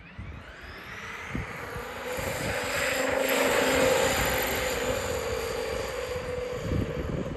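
Traxxas E-Revo 2.0 RC monster truck running flat out on pavement: the brushless motor and geartrain give a high whine, with tyre noise on the asphalt. The sound swells as the truck approaches, is loudest about four seconds in as it passes, then fades as it pulls away.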